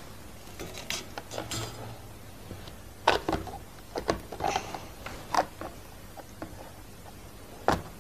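MSI R7950 Twin Frozr graphics card being handled and fitted into a motherboard's PCI Express slot: scattered short clicks and knocks as it is lowered and pressed home, the loudest about three seconds in and just before the end.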